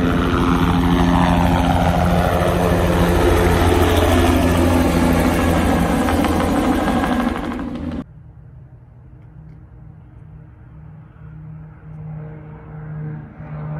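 Helicopter lifting off and flying past, its loud rotor and engine noise falling in pitch as it goes by, cut off abruptly about eight seconds in. A quieter steady drone from a twin-engine propeller airplane follows and grows louder near the end.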